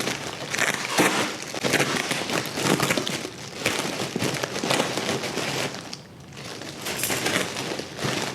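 Package wrapping being handled and opened, crinkling and crackling irregularly throughout.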